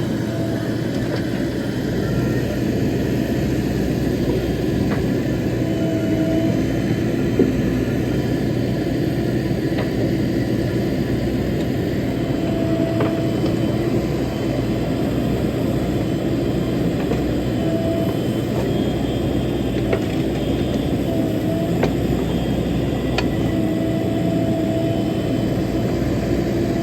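JCB 3DX backhoe loader's diesel engine running steadily at work, with brief higher tones coming and going every few seconds and a few faint clicks.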